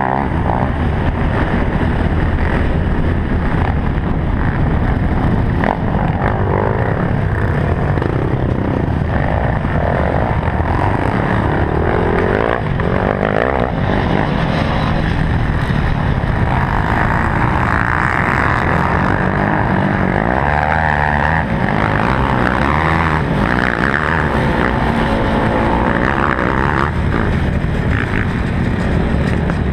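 Polaris Sportsman 570 utility quad's single-cylinder engine running hard under racing load, its pitch rising and falling with the throttle.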